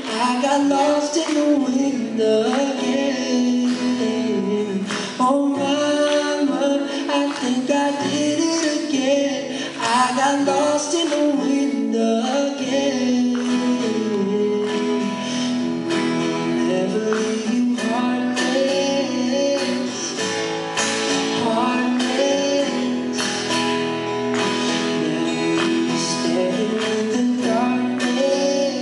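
Live acoustic performance: a man singing, accompanied by strummed acoustic guitar.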